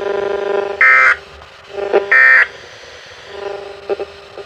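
Electronic emergency-alert tones: a buzzy steady tone that cuts off after about a second, two short higher-pitched beeps about a second apart, then a fainter stretch of the tone with a few clicks. They signal an incoming severe thunderstorm warning broadcast.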